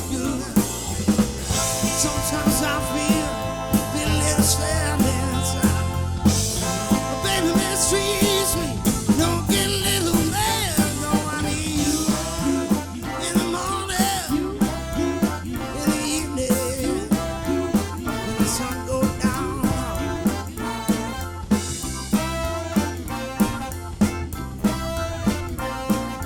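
Live soul band playing an instrumental passage: the drum kit keeps a steady beat under held chords and melody lines.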